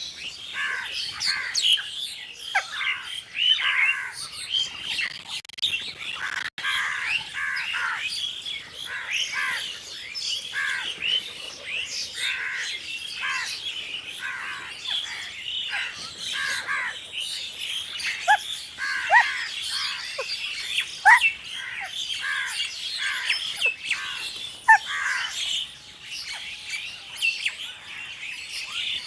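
A flock of crows calling together, many short overlapping caws and squawks.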